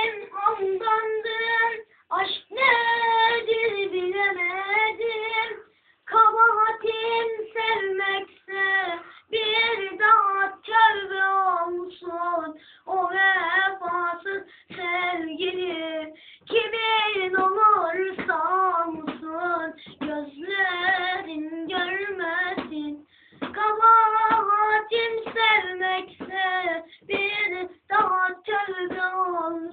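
A boy singing solo and unaccompanied in a high voice, the pitch bending and wavering within each phrase, with short breaks between phrases.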